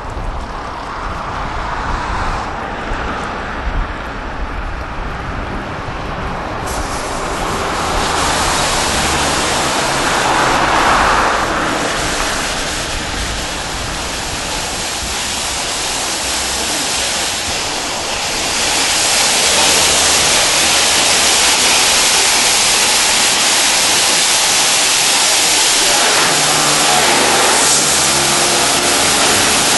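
Automatic car wash running: a steady rush of water spray and machinery. It grows louder about seven seconds in and again near twenty seconds, with a low steady hum from the machinery near the end.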